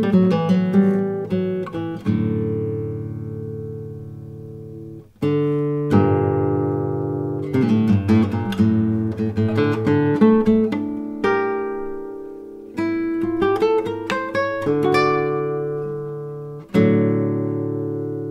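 Background music: acoustic guitar playing picked notes and strummed chords that ring and slowly die away between strokes.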